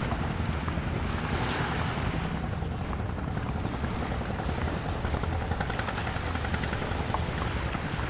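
Waves washing onto a sandy beach with wind on the microphone, a steady low rumble throughout.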